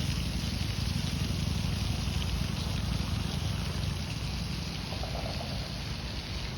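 Fountain water splashing and pouring in a steady hiss, over a strong, even low rumble.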